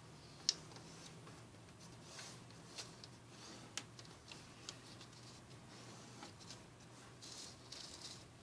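Faint handling of a folded paper strip on a wooden tabletop: a few light taps and clicks as fingers press the creases, the sharpest about half a second in, and soft paper rustling and sliding, longest near the end. A low steady hum runs underneath.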